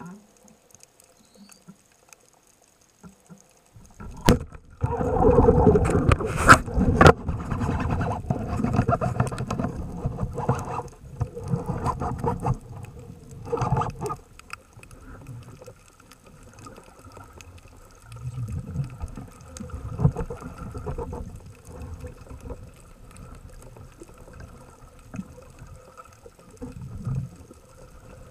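Underwater sound through an action camera's housing: near silence, then a sudden hard knock about four seconds in. After it comes loud rushing water with several sharp knocks as the diver moves and swims, settling into intermittent low rumbling of water against the camera.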